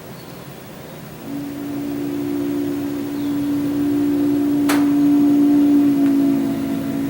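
Train horn sounding one long, steady chord that starts about a second in, swells toward the middle and eases off a little near the end. A single sharp click falls about two-thirds of the way through.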